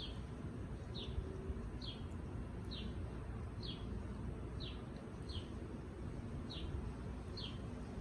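A bird's short, high, falling chirp, repeated about once a second, nine times in all, over a steady low background rumble.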